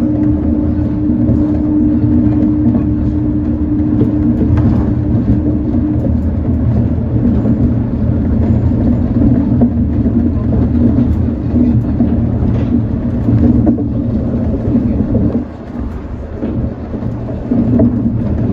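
Shonan Monorail 5600-series suspended monorail car running on its rubber tyres along the overhead beam, heard from the driver's cab: a steady low rumble, with a humming motor tone that stops about six seconds in. The sound dips briefly near the end, then picks up again.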